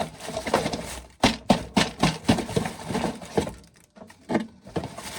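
Corn being shelled and handled: a quick, irregular run of sharp clicks and knocks, kernels and cob rattling, starting about a second in and stopping after about three seconds, with one more knock near the end.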